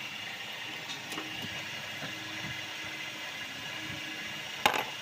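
Hand-tool work on the engine's intake manifold: a few light clicks over a steady workshop hum, then one sharp metallic click near the end.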